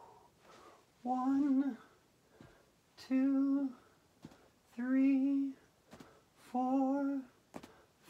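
A woman humming a short held note on the same pitch with each leg lift, four times about two seconds apart, with faint clicks between the notes.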